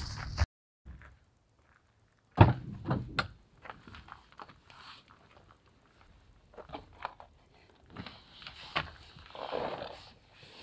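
A sharp thunk about two and a half seconds in, then lighter knocks, clicks and rustling as a white plastic cooler is handled and lifted out through an SUV's open rear door.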